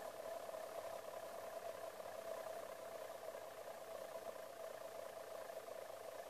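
Home-built Bedini-style pulse machine running with a steady hum, an even mid-pitched tone that holds without change.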